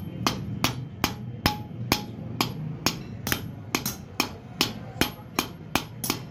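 Hammer blows on metal against an anvil in a steady rhythm, about three sharp strikes a second, fixing a sickle blade to its wooden handle.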